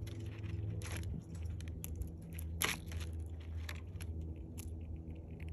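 A squirrel cracking sunflower seed shells with its teeth: irregular sharp crunches and clicks, two of them louder, over a steady low hum.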